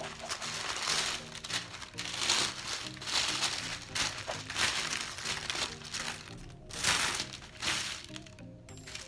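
Plastic wrapping and tissue paper crinkling and rustling in repeated bursts as hands unwrap a package, over background music with a repeating low bass line.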